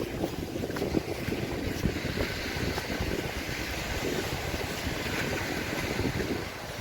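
Wind buffeting the microphone in uneven gusts over the steady wash of waves on the shore.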